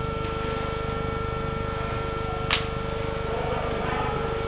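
A steady hum, with a single sharp click or smack about two and a half seconds in.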